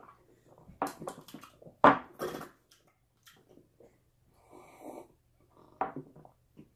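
People sipping soda from small plastic cups and sniffing it: short slurps, sniffs and breaths, the loudest about two seconds in, with more near the end.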